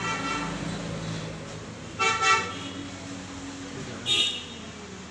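Yamaha PSR-SX900 arranger keyboard sounding short, brassy horn-like chords three times, about two seconds apart. The middle one is the loudest and the last is shorter and higher, with a low sustained tone underneath.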